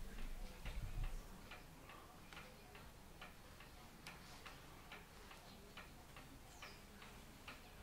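Mechanical clock ticking steadily, about two and a half ticks a second.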